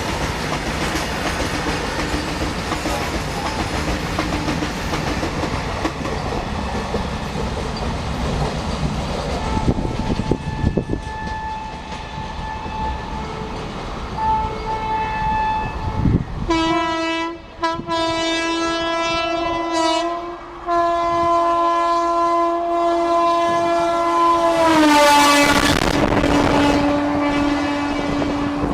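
WAP-4 electric locomotive's triple-tone horn blowing, first in short blasts and then in one long blast, as the express runs through at speed; about 25 s in its pitch drops as the locomotive passes, with a rush of noise. Before the horn comes the steady rumble and wheel clatter of a train on the rails, with faint distant horn notes.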